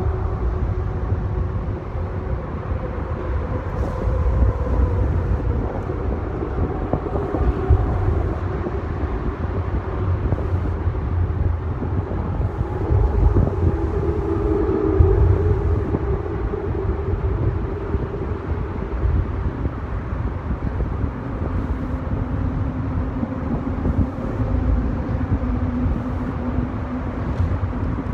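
Road traffic crossing the bridge overhead: a steady low rumble, with the hum of passing vehicles swelling and fading every few seconds.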